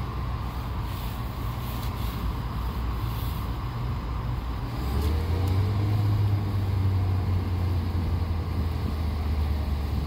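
Heavy construction machinery engines running steadily, with one engine picking up and running louder and deeper from about five seconds in.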